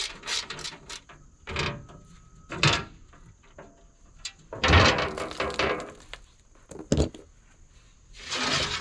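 Hand tools and the excavator's sheet-metal belly pan being worked loose from underneath the machine: a few separate scrapes and knocks, the longest and loudest scrape about five seconds in, a sharp click about seven seconds in, and the panel sliding near the end.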